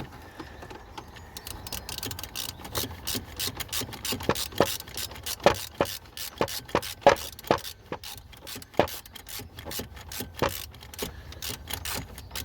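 Irregular clicks and knocks of hand tools and metal and plastic parts being worked on in a van's engine bay, several a second, with some ratchet-like clicking.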